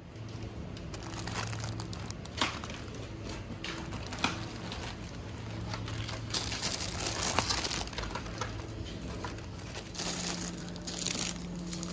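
Plastic packaging crinkling and rustling as a bagged lettuce is handled, with a few sharp clicks, over the steady low hum of a supermarket's refrigerated display cabinets.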